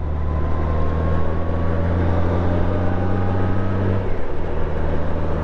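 Motorcycle engine running at a steady cruising pace, heard from the rider's helmet microphone with wind noise over it; the engine note eases off about four seconds in.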